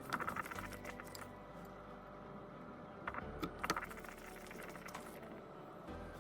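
Small hard objects, likely tools or phone parts, clicking and clinking in two quick clusters: one near the start and one about halfway through, over a faint steady hum.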